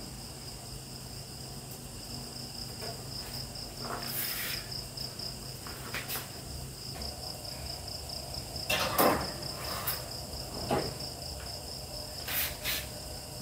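Crickets chirping in a steady, fast, even pulse, with a few short knocks and clatters, the loudest about nine seconds in.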